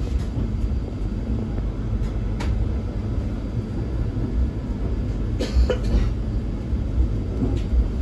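Interior running noise of a PESA EN97 electric multiple unit moving along the track: a steady low rumble of wheels and traction equipment. A sharp click comes about two and a half seconds in, and a brief sharper noise comes about five and a half seconds in.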